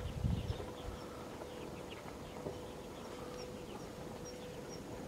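Outdoor ambience with small birds chirping in short, high, repeated calls over a faint steady hum, with a brief low rumble of wind in the first half second.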